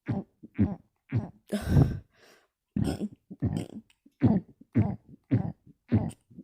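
A person burping over and over with the mouth closed: a rapid series of short burps, about two a second, with one longer, louder burp about two seconds in.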